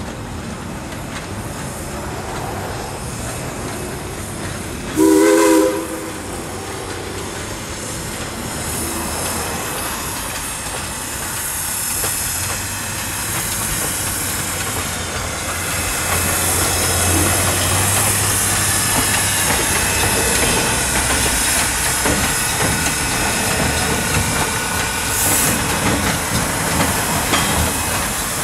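2-8-0 Consolidation steam locomotive sounding one short whistle blast, a chord of several tones, about five seconds in. Its running sound then grows steadily louder as it approaches.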